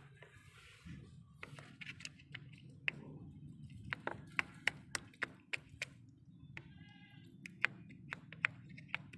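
Scattered faint clicks and taps as a hand presses a mixture down into a small cup, with a brief pitched call about seven seconds in.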